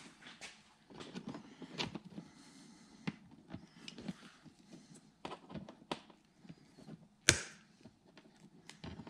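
Lineman's pliers snipping through the wires of an old light socket, with the small clicks and rustles of the wires being handled; the sharpest snap comes about seven seconds in.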